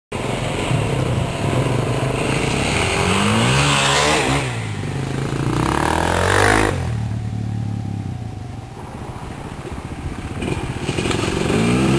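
Off-road dirt bike engines revving as riders pass one after another: one revs up, is loudest as it passes close about six and a half seconds in, then drops away abruptly, and another bike revs up near the end.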